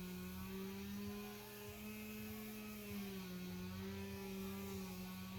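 Small electric screwdriver running steadily as it drives the RC crawler's middle screws in, its pitch rising and falling slightly; it stops at the very end.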